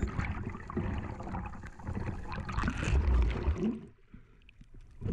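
Water rushing and gurgling around a diver's action camera as he swims up and breaks the surface, with a loud splashing burst about three seconds in; after that, quieter small splashes of water at the surface.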